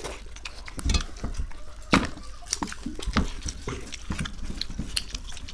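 Close-miked eating sounds: wet chewing, slurping and lip smacks of watery panta bhat (soaked rice) eaten by hand, with fingers squishing through the rice water on steel plates. It is a run of short wet clicks and smacks, with louder ones about one and two seconds in.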